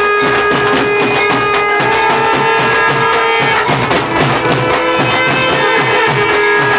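Dhol drums beating a steady dhamal rhythm under a wind instrument holding long notes, which shift pitch about halfway through.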